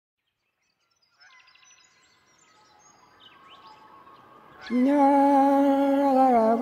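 Faint birds chirping, then, near the end, a man's voice comes in loudly, chanting in long held notes that step down in pitch.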